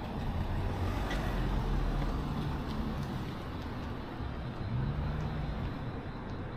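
Road traffic: cars driving past on a city street, their engines louder in the first couple of seconds and again about five seconds in, where one engine note rises briefly.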